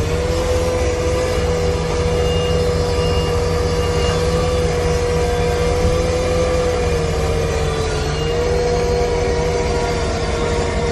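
Vehicle engine and road rumble heard from inside the cab while driving, with a steady humming whine that holds one pitch and dips briefly about eight seconds in. A few faint, short high beeps sound a couple of seconds in.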